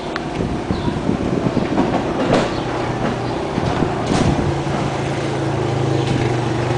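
A steady mechanical hum that gets stronger about four seconds in, with irregular clatter throughout and a couple of sharp knocks.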